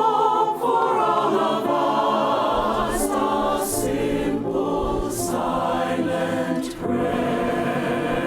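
A choir singing in several parts, with sustained chords and crisp 's' consonants sung together.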